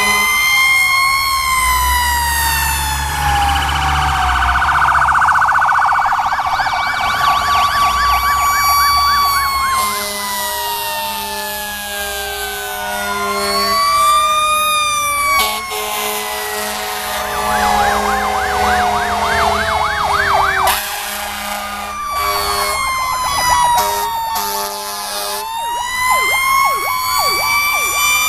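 Several fire trucks' sirens sounding together as the trucks drive slowly past: overlapping slow wails rising and falling, with stretches of fast yelping. Steady horn blasts cut in and out in the middle, and diesel engines run underneath.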